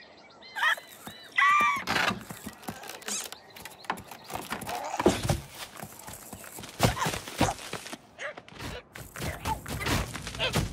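Cartoon sound effects for an animated bird: a few quick warbling chirps, then a louder squawk about a second and a half in. After that comes a busy run of knocks, thuds and clattering.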